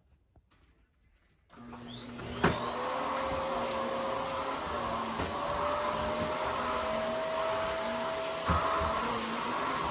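Vacuum cleaner switched on about a second and a half in, its motor spinning up with a rising whine and then running steadily with a high whine. A single knock comes near the end.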